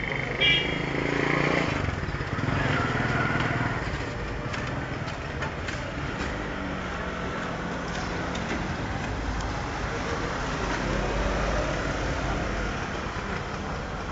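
Steady street traffic noise with motor vehicle engines running, and a short high-pitched tone about half a second in.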